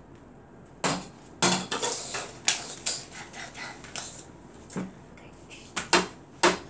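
Irregular sharp taps and knocks of hands and a glue stick on a paper chart and tabletop, about eight in all, starting about a second in, as a paper cut-out shape is glued down and pressed flat.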